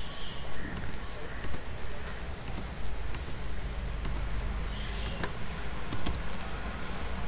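Computer keyboard keys clicking at irregular intervals, the spacebar pressed to drop points along a line, with a quick cluster of clicks about six seconds in, over a low steady hum.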